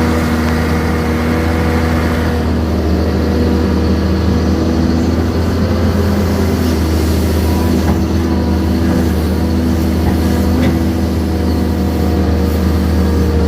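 Heavy diesel engine of a Caterpillar excavator running steadily under work, with a couple of faint knocks.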